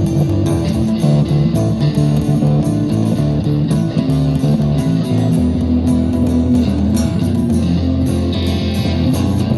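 Instrumental break of a rock song: electric guitar and bass guitar playing over a steady beat, with no vocals.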